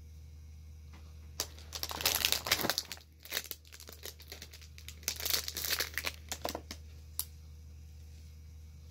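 Plastic packaging crinkling as it is handled and pulled off a pet nail grinder, in two spells of rustling a couple of seconds apart, with a sharp click before the first and after the second.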